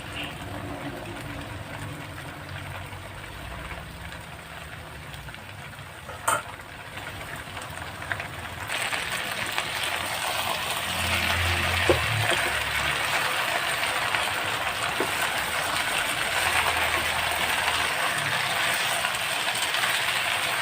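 Green pepper sizzling in a hot pan. The sizzle starts suddenly about a third of the way in and stays steady, with a single sharp clink shortly before it.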